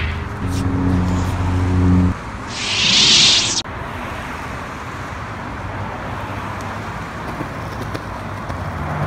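Steady road traffic noise from a busy street. Over the first two seconds a steady low electric hum sounds, then about a second of loud hissing swoosh, from the lit lightsaber toy being swung.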